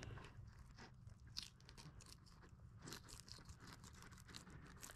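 Fillet knife slicing along a sheepshead's backbone through scaled skin and flesh: a faint, irregular crunching and crackling.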